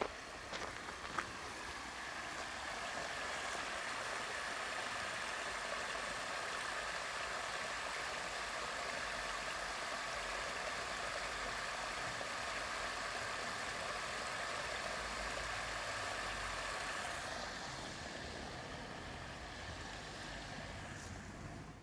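Swimming pool being drained through a hose: the water pours from the hose end onto the ground at the foot of a wall, a steady splashing that eases after about seventeen seconds.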